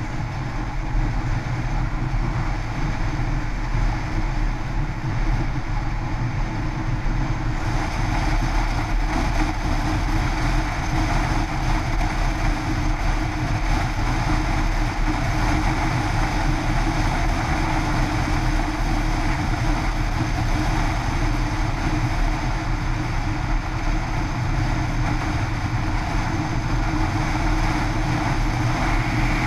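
Yamaha X-City scooter under way, its engine droning steadily under a loud rush of wind and tyre noise. The rush turns brighter about eight seconds in.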